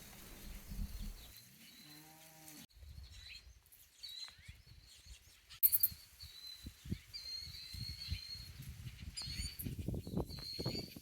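A single low, pitched animal call lasting about a second, a little after the start, then repeated short high chirps from birds or insects with scattered soft knocks.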